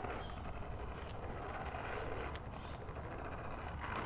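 Plastic toy bubble lawnmower being pushed along a patio, its wheels and mechanism rattling steadily, with a couple of light knocks near the end.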